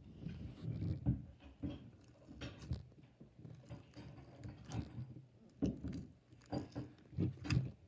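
Fingers pressing and poking a bead-filled crunch slime, giving irregular sticky squelches and small crackling clicks.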